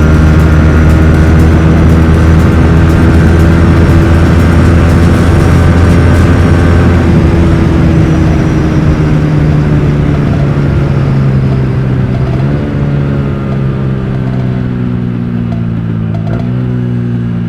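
Yamaha R15 V3's single-cylinder four-stroke engine running through an aftermarket R9 exhaust while riding, holding a steady high-revving note for several seconds. It then eases off and grows quieter in the second half, with the revs jumping up sharply twice, about twelve and sixteen seconds in.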